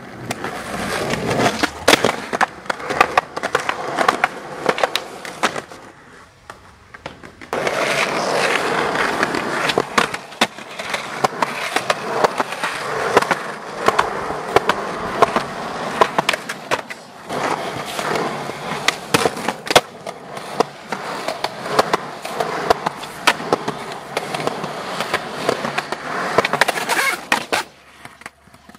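Skateboard wheels rolling on concrete, broken by many sharp clacks of the board's tail popping and landing. The rolling drops away for a moment about six seconds in and again near the end.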